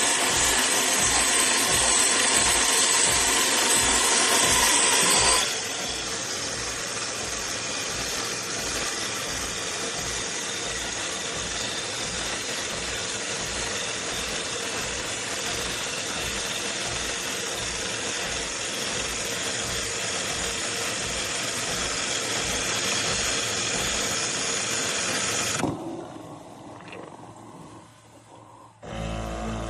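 De'Longhi Rivelia bean-to-cup espresso machine running with a steady mechanical whirr. The whirr is loudest and hissiest for about the first five seconds, then settles to a steadier, slightly quieter run that dies away near the end.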